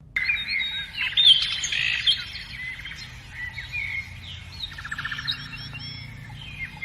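Several birds chirping and twittering in quick overlapping calls, with a fast trill about five seconds in, over a low steady background rumble.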